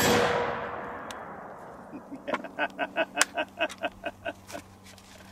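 The boom of a T/C Impact SB .50-calibre muzzleloading rifle shot, loaded with Pyrodex, dying away over the first second or two. Then a man laughs in a quick run of short bursts.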